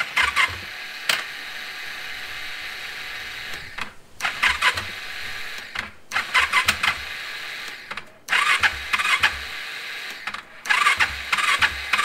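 KTM 690 electric starter spinning and clacking without engaging the engine, over about five presses of the starter button. Each press opens with a burst of rapid clacks and settles into a steady whir. It is the sign of a failing starter clutch (freewheel) or torque limiter.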